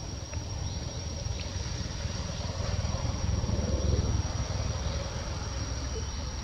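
Outdoor background noise: a steady low rumble with a constant high-pitched insect drone running through it.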